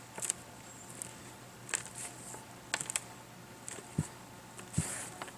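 Hands rummaging through loose soil from an emptied potato grow bag: scattered rustles and small clicks, with two dull thuds about four and five seconds in.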